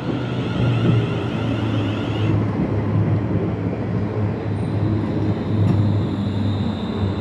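EMR Connect Class 360 electric multiple unit running past close by: a loud, steady rumble of wheels on rails, with a high whine that fades out after about two seconds.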